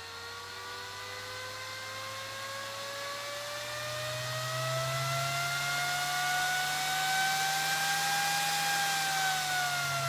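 Dell PowerEdge R710 server fan spinning up under a fan controller: a whine with rushing air that rises in pitch and grows louder, levels off, then starts to drop about nine seconds in.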